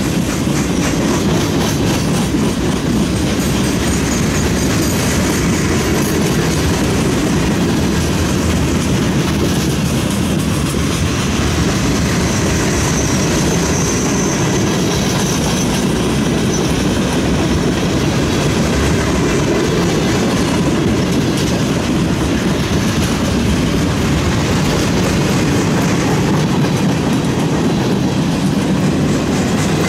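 Freight train rolling past close by at a steady speed: a continuous heavy rumble of gondolas, flatcars and covered hoppers, with the wheels clattering over the rail joints.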